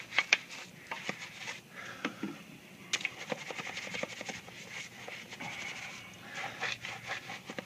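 Small detailing brush scrubbing a foamy alloy wheel coated in wheel cleaner: an irregular run of short, scratchy strokes, with one sharp click about three seconds in.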